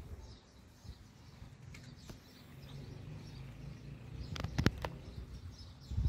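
Stray cats eating from a plastic tray of dry cat food: a short cluster of sharp crunching clicks about four and a half seconds in, over a faint low hum.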